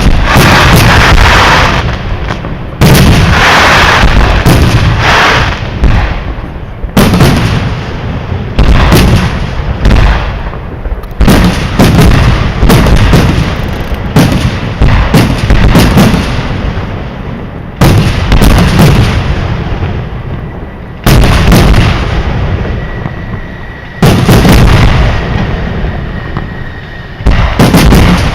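Fireworks display: aerial shells bursting with very loud sharp bangs one after another, every second or two and sometimes in quick clusters. Each bang is followed by a rumbling tail that dies away.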